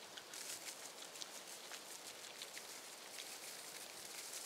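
Granular deer attractant shaken out of a container and pattering onto dry leaves in scattered light ticks.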